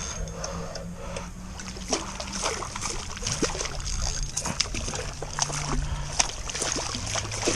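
A hooked snook splashing at the water's surface, in short irregular splashes, while it is fought on rod and reel.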